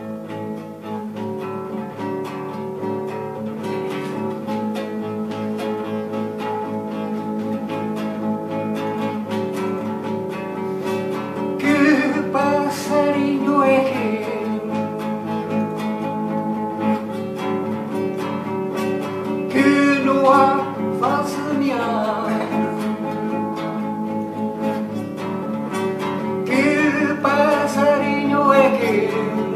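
Classical guitar strummed in a steady accompaniment, with a man's voice singing over it in three phrases: the first about twelve seconds in, the second around twenty seconds, the last near the end.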